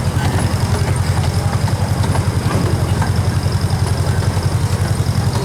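Small zoo passenger train running, heard from on board: a steady low engine rumble with a rapid, even throb.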